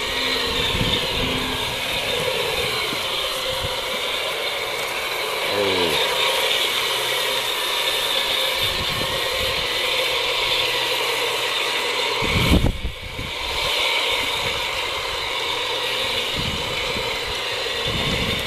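Two battery-powered garden-railway diesel locomotives running steadily along the track, pushing a snow plough through snow: a steady mechanical whir from their motors and gears. A brief low rumble about twelve and a half seconds in.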